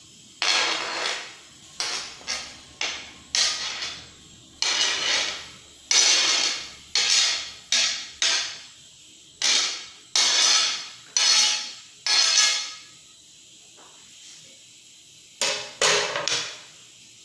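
Chopped vegetables being put into a dish: a run of about twenty scraping knocks, each fading over about half a second, at irregular spacing, with a pause of about two seconds near the end.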